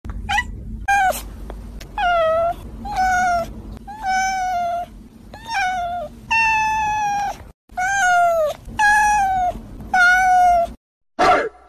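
A blue-eyed white cat meowing over and over: about ten drawn-out meows in a row, each sliding up in pitch at the start and then held for half a second to a second, with short breaks between.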